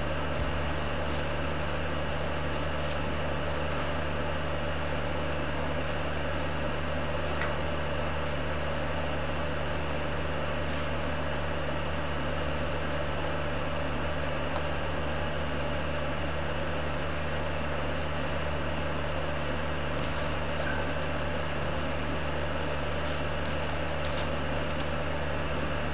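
Steady low hum with an even hiss over it, unchanging throughout, with a few faint ticks.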